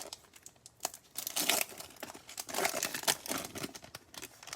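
Foil wrapper of a retail basketball card pack crinkling and tearing as it is ripped open, with bursts of rustling as the cards are pulled out.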